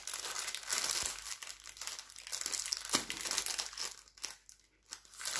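Clear plastic wrapping around a rolled canvas crinkling as it is handled, in irregular rustles with a short lull about four seconds in.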